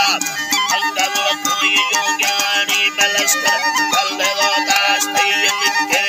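Traditional folk music: a man singing with a wooden flute and a stringed instrument playing along, with an even pulse of short plucked or struck notes under the melody.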